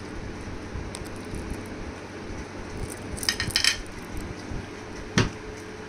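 Light clinks of a sauce bottle and a plate: a quick run of small clinks about three seconds in, then one sharper knock near the end.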